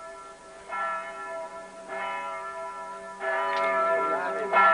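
Church bells ringing, a new stroke about every second and a quarter, each ringing on into the next so that the peal builds up in loudness.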